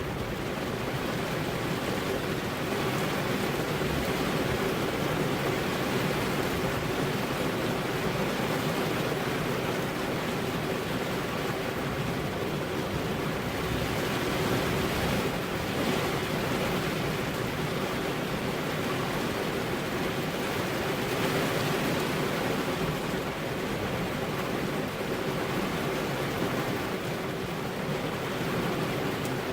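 Steady rain falling on a car's window glass, an even, dense hiss without breaks, with a faint steady hum underneath.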